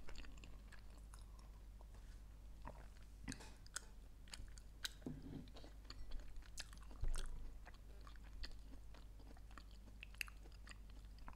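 A person chewing food with the mouth closed, picked up close by a clip-on microphone: soft wet clicks and smacks at an irregular pace, over a low steady hum.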